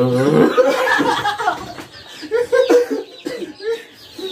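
People laughing, loudest in the first second and a half, then breaking into shorter bursts of chuckling. Faint chicken-like clucking runs underneath.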